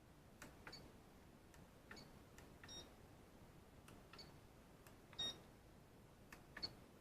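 Graupner MX-20 RC transmitter: faint, short clicks and high beeps at irregular intervals, about a dozen in all, the loudest about five seconds in, as its switches and controls are worked in a function test after the switch repair.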